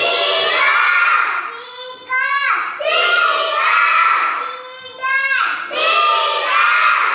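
A child's high-pitched voice chanting phonics sounds and short three-letter words in a sing-song way, in about three repeated phrases.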